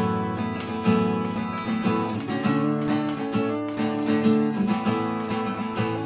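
Taylor GS Mini-e koa acoustic guitar strummed, its chords ringing, with the chord changing several times.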